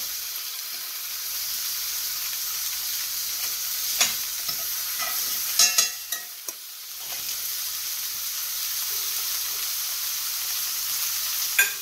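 Rib steak sizzling steadily as it sears in a hot cast iron skillet with garlic cloves. A few sharp clicks are heard about four seconds in, twice around six seconds, and near the end.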